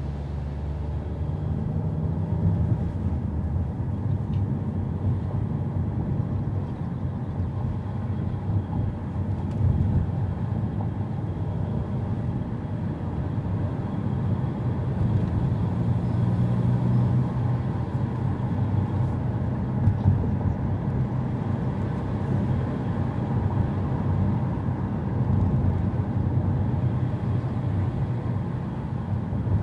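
A car driving: steady engine and tyre rumble, with the engine note shifting up and down a few times as the speed changes. A couple of brief knocks come about twenty seconds in.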